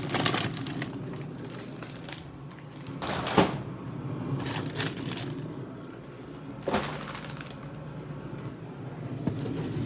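Frozen food boxes and bags being shifted and pulled out of a freezer: crackling and rustling packaging, with three sharper knocks about three seconds apart.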